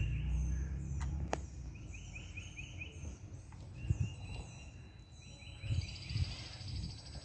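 Songbirds singing: runs of short, quickly repeated high chirps, then a fast high trill near the end. A low rumble and a couple of sharp clicks come in the first second or so.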